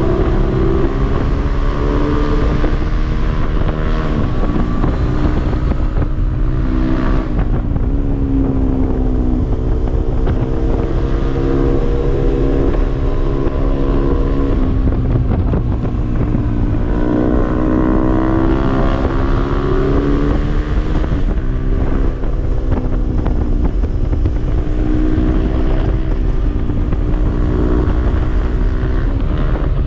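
Honda Grom mini motorcycles' small single-cylinder engines running past in a string, their engine notes rising and falling with the throttle through the bends, over heavy wind noise on the microphone.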